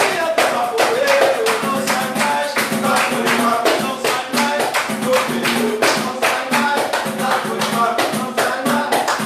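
A samba band playing live, with a voice singing over dense, quick percussion.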